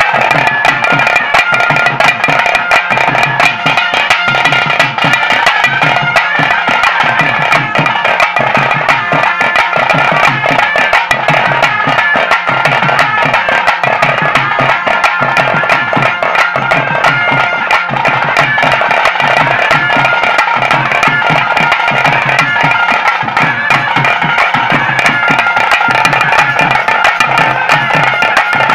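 Traditional South Indian ritual music, amplified: a double-reed pipe of the nadaswaram type plays a sustained, ornamented melody over a steady, even drum beat.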